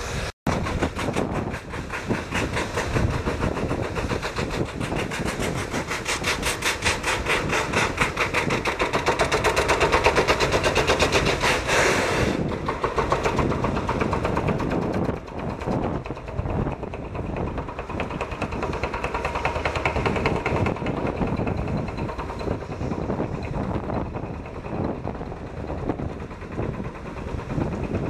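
Drill rig of a railway foundation-setting train hammering in rapid, even strokes while setting a new catenary mast foundation. The hammering is loudest for about the first twelve seconds, then goes duller and less regular.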